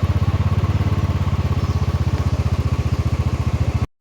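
Motorcycle engine running steadily, its firing heard as a fast, even beat of about 25 pulses a second, with a faint steady whine above it.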